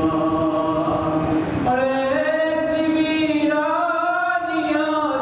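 A man chanting solo in a slow, melodic recitation, holding long notes that bend slowly in pitch, in two phrases with a short break about a third of the way through.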